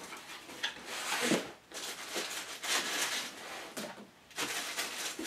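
Cardboard box being opened and its foam packing insert pulled out: cardboard and foam rubbing and scraping in several short rustling bouts, with a few light knocks.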